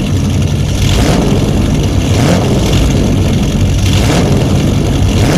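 Heavy diesel engine of a road roller running steadily and loudly. The sound cuts in and out abruptly, as an added vehicle sound clip would.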